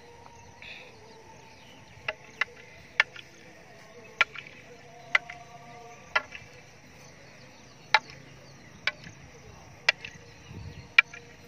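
Long bamboo fighting staffs (silambam) striking each other in sparring: about ten sharp wooden clacks, irregularly spaced at roughly one a second.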